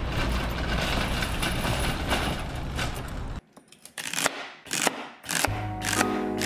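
Shopping cart rolling over pavement, its wheels and wire basket rattling steadily. About halfway through this cuts off and a chef's knife chops celery on a wooden cutting board in a quick run of sharp strikes, with background music coming in near the end.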